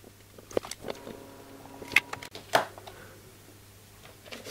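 A few light, sharp clicks and knocks from handling small tools and wire on a workbench while a wire is soldered to a switch terminal.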